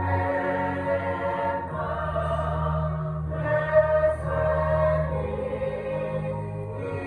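Choir singing slow, held chords over steady low notes, with the harmony changing every few seconds.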